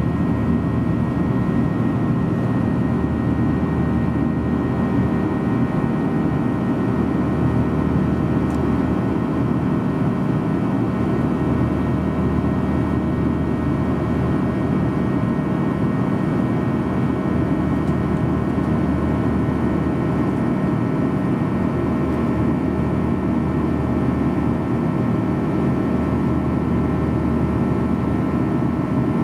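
Boeing 737-800 cabin noise during the climb-out: the steady roar of its CFM56 turbofan engines and the air over the fuselage, heard from a window seat, with a few thin, steady whining tones over a deep rumble.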